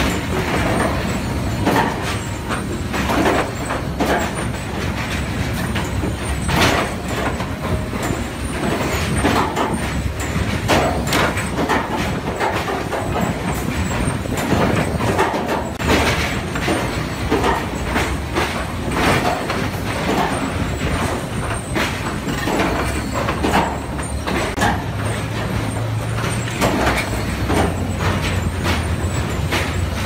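Sawmill log-handling machinery running: a steady mechanical din with frequent irregular knocks and clatter of logs on steel infeed decks and conveyors, and a low machine hum that grows stronger near the end.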